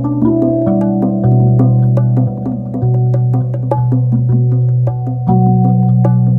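Live ambient music: held synthesizer bass notes that step to new pitches every second or so, under quick, light bongo taps played by hand.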